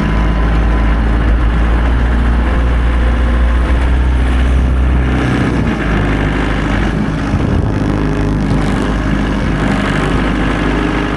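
Tractor engine running steadily while plowing snow. A deep low drone is strong for the first few seconds and eases about halfway through as the load or engine speed changes.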